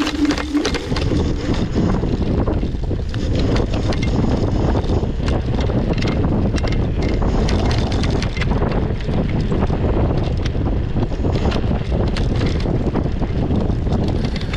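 Wind buffeting the microphone while riding, a steady low rumble with many irregular knocks and rattles.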